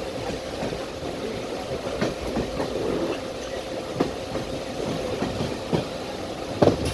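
Electric train running on the rails: a steady rumble with irregular sharp knocks of the wheels over rail joints, and a faint steady tone.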